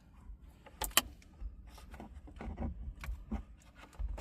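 Two sharp clicks close together about a second in, then scattered light taps and rustling from hands handling plastic interior trim and cabling inside a car.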